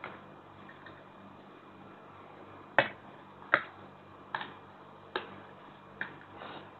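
Metal cutlery clinking against a ceramic plate as a plate of instant noodles is tossed and mixed: five sharp clicks, about one every 0.8 s, starting a little before halfway, the first two the loudest.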